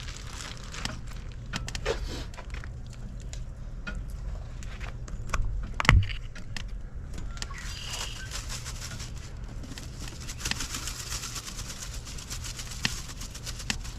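Scattered light clicks and knocks of objects being handled, with one sharp knock about six seconds in, over a steady low rumble.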